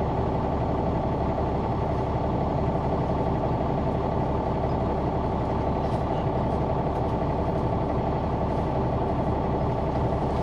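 Caterpillar C-9 ACERT diesel engine of a 2004 Neoplan AN459 articulated transit bus running with a steady drone, heard from the back seats inside the bus.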